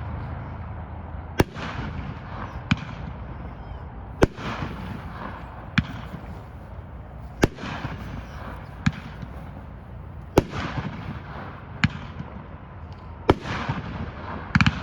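Aerial firework "Cannon Fire" going off in a series of loud bangs about every three seconds, each followed by a short crackle, with fainter pops between them.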